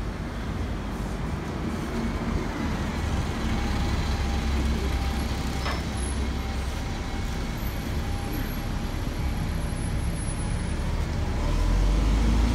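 Street traffic: a steady rumble of passing vehicles and engines, swelling louder near the end.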